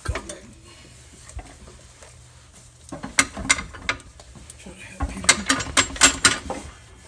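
Ratchet wrench clicking as it is worked in short strokes on a bolt under the car: a few clicks about three seconds in, then a quicker run of clicks about five seconds in.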